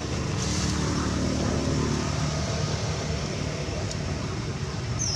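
A motor vehicle's engine passing, its note falling in pitch, over a steady low rumble of traffic.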